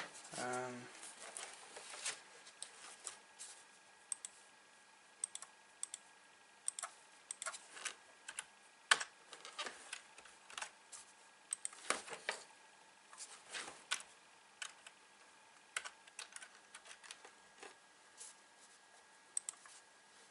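Scattered, irregular taps of keys on a computer keyboard, a few at a time with pauses between them.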